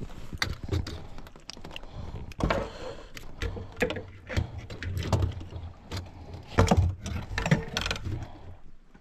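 Irregular clicks, knocks and rattles from handling a freshly caught giant freshwater prawn and fishing line in a small boat, over a low rumble.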